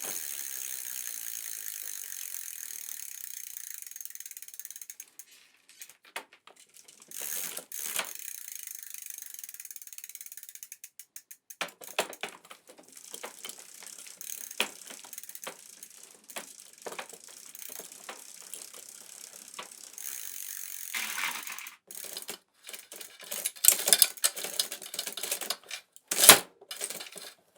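Bicycle freewheel ratcheting: first a fast, steady buzz of the pawls as the wheel spins freely, then slower, irregular clicks and rattles of the chain and freewheel. The clicks grow louder and come thicker near the end.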